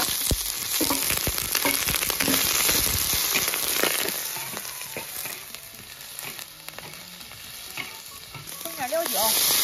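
Chunks of beef sizzling in hot oil in a large wok as they are stir-fried, with a metal spatula scraping and knocking against the pan. The sizzle is loudest in the first few seconds, eases off, then swells again near the end.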